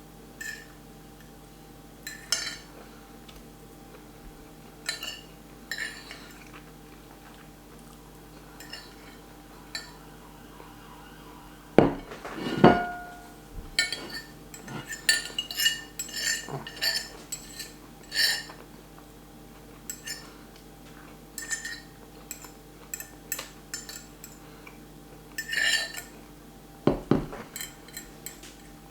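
A fork clinking and scraping against a plate of spaghetti in irregular short taps, busier in the second half, with a couple of louder knocks, one of them briefly ringing.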